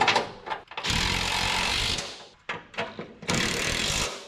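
A power wrench runs in two bursts of about a second each, one about a second in and one near the end, tightening the transmission crossmember bolts. A few short clicks come before the first burst.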